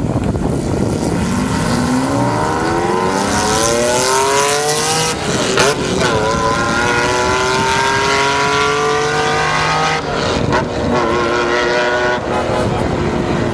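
A sports car's engine accelerating hard, its pitch climbing steadily and dropping back at upshifts about five and a half seconds and ten seconds in.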